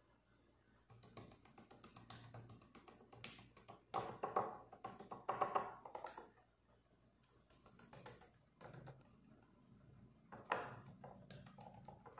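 Fingers patting and rubbing seasoning into raw chicken breasts on a ceramic plate: a run of quick, soft taps and moist slaps, loudest around the middle and again near the end.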